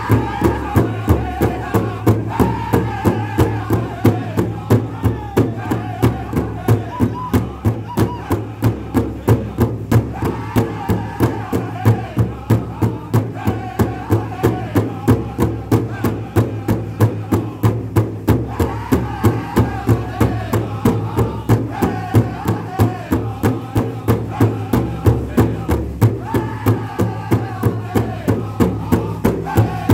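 Powwow drum group singing in unison while striking one large shared drum together in a steady, even beat. The voices come in phrases over the unbroken drumming.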